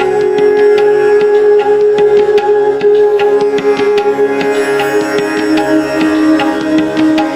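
Instrumental background music: a held drone under quick plucked and drummed notes, the drone stepping down in pitch about five and a half seconds in.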